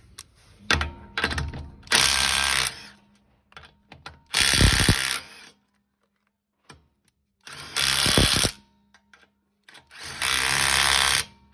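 Modified Milwaukee 2853 cordless impact driver, set up as an impact wrench, run in four bursts of about a second each, with shorter spin-ups and clicks between them.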